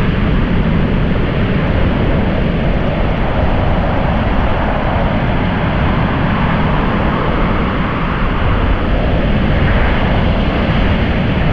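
Sea waves surging and breaking in a strong wind, with the wind buffeting the GoPro's microphone: a steady, loud rush with a heavy low rumble.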